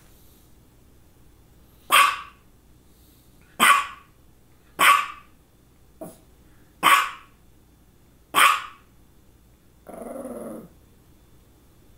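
Small dog barking: five sharp barks spaced about one to two seconds apart, with a short softer one among them, then a brief lower growl near the end.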